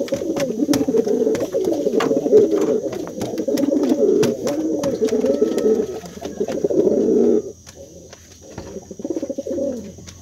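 Domestic pigeon cock cooing steadily to call his hen to the nest. The cooing breaks off suddenly about seven and a half seconds in, and one shorter bout of coos follows near the end.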